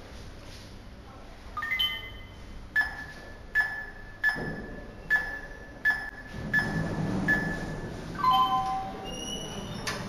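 Eproer fingerprint glass door lock's touch keypad: a short rising wake-up chime, then seven beeps at a steady pace as a code is tapped in, followed by a short multi-note tune as the code is accepted and the lock releases, with a click near the end.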